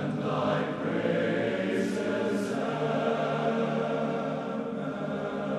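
Choir singing long, sustained chords as background music.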